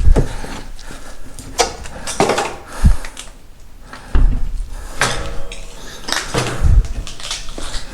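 Footsteps picking over scattered debris: irregular clattering and clinking of loose junk, with several heavy thumps.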